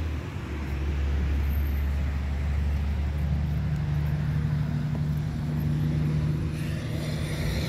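Steady low hum of an idling engine. A second, higher hum joins in about three seconds in and holds steady.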